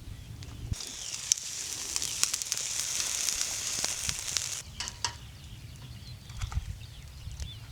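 Food sizzling in a hot pan, with small pops and crackles; the sizzle starts suddenly about a second in and stops suddenly about four seconds later.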